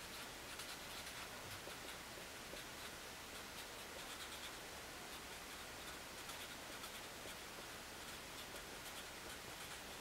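Marker pen writing on paper: faint, irregular scratching strokes of the tip over a low hiss.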